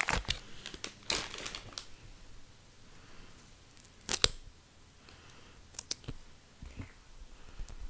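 Close-miked crinkling and tearing handling noises from gummy candy eggs and their wrapper, in short scattered bursts with one sharp click about four seconds in.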